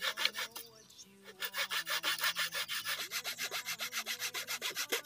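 Small metal saw blade sawing back and forth through the thick cardboard tube of an aerial firework, in fast, even rasping strokes of about seven a second, with a short pause about a second in.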